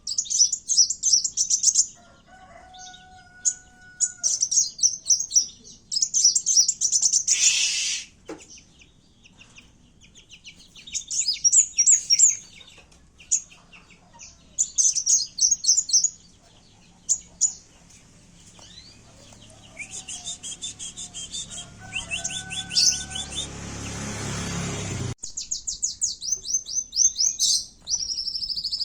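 Small songbird, the kowul of a lure recording, singing bursts of rapid, high-pitched trills and chattering phrases over and over. A low steady tone sounds twice, and a rushing noise builds in the second half and cuts off suddenly.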